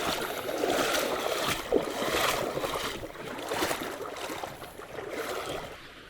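Creek water sloshing and splashing in irregular surges, stirred up close by, fading out near the end.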